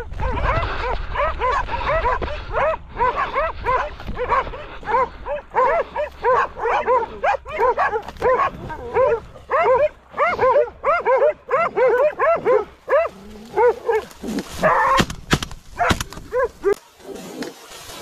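Hunting dogs barking and baying at a cornered wild boar, several barks a second and overlapping. Near the end the barking breaks into a few sharp, noisy bursts as the dogs close on the boar.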